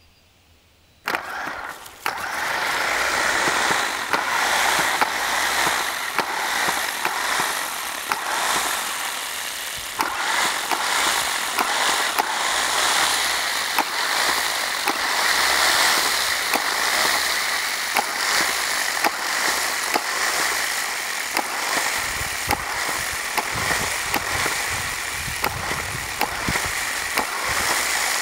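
Lure coursing machine starts about a second in and then runs steadily, its motor and line whirring with a stream of light clicks as it pulls the lure across the field.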